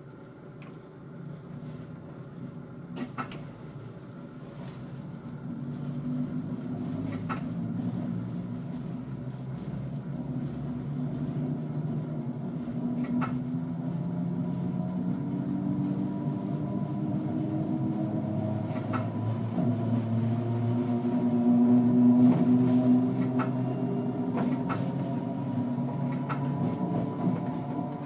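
NMBS AM62 electric multiple unit pulling away and gathering speed: a motor hum slowly rising in pitch over a running rumble that grows steadily louder. Sharp clicks at intervals of a few seconds, wheels passing over rail joints and points.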